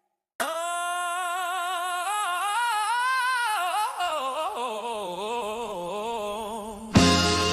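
A wordless sung vocal, humming or singing long held notes with vibrato, that moves to lower, wavering notes after about four seconds. Near the end a hip-hop beat with drums and bass kicks in.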